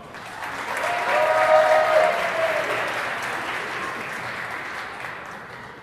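Audience applauding for a graduate, swelling over the first second and a half and slowly dying away, with one voice holding a long cheer about a second in.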